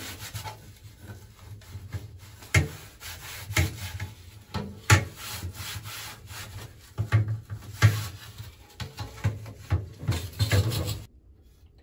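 A cloth rubbing and wiping over hard plastic car heater air-duct parts, the parts shifting and knocking against the hard surface several times with sharp clacks. The sound cuts off suddenly near the end.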